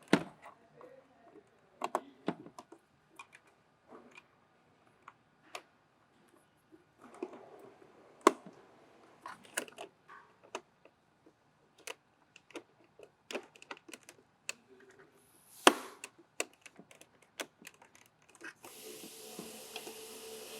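Irregular light clicks and knocks of small plastic and metal parts being handled and fitted, with a sharper knock about 8 seconds in and another near 16 seconds. A steady hiss comes in near the end.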